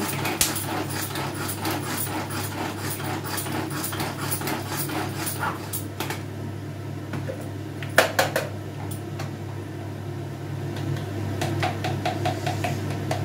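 Whole spices sizzling and crackling in hot oil in a steel kadhai while a spatula stirs and scrapes the pan. A dense run of clicks thins out after about six seconds, and there is one sharp clank about eight seconds in, over a steady low hum.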